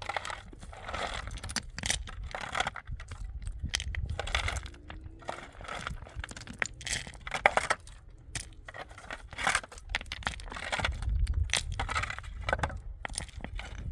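Irregular clinking, crunching and rustling of things being handled, in quick uneven bursts, over a low rumble of wind on the microphone.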